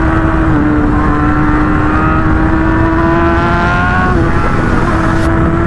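Motorcycle engine running at fairly steady revs under way, rising a little and easing off about four seconds in, with heavy wind rush on the microphone.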